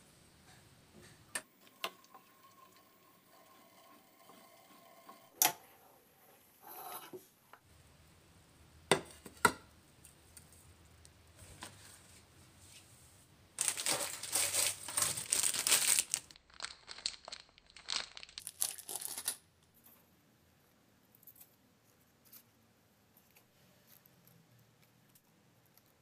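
Fresh banana leaves being handled, a dry crackling rustle in two spells of a few seconds each about halfway through. Before that come three sharp clicks: one about five seconds in and two close together about nine seconds in.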